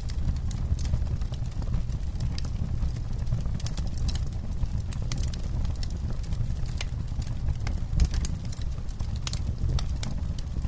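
Wood campfire crackling: irregular sharp pops and snaps over a steady low rumble of the flames, with one louder pop about eight seconds in.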